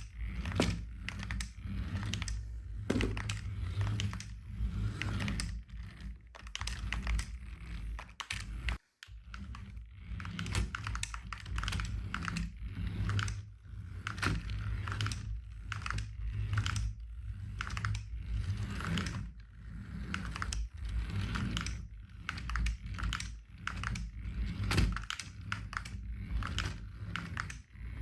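Hands handling a plastic RC toy car and its packaging: a dense, irregular run of small clicks, taps and rustles, several a second, with one brief cut to silence about nine seconds in.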